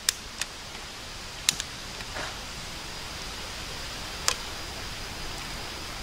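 Campfire being lit with fire starters: a few sharp clicks and snaps, scattered over a steady hiss.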